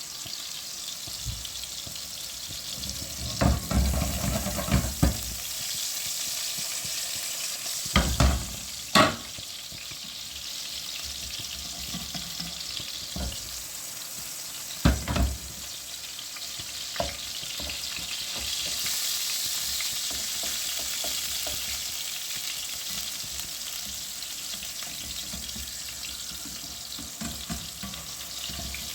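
Food frying with a steady sizzling hiss, broken by a few sharp knocks: a cluster a few seconds in, two more around eight to nine seconds in, and another about halfway.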